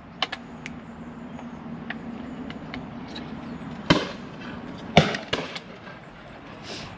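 Two sharp bangs about a second apart, the second the louder, among a few lighter clicks, over a low steady hum that fades out after the second bang.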